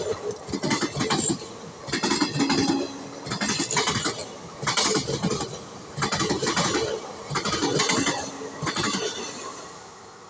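Passenger train coaches passing at speed, their wheels clattering over the rail joints in rhythmic bursts about once a second. The clatter fades near the end as the last coach moves away.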